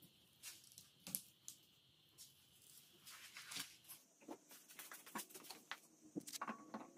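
Faint rustling with scattered light clicks and taps as hands handle cloths and packaging on a workbench. The clicks come more often in the second half.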